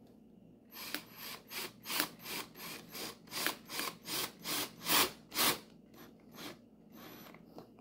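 Cordless drill driving a screw through a metal mounting bracket into a wooden plaque, run in short repeated bursts, about three a second, for some six seconds.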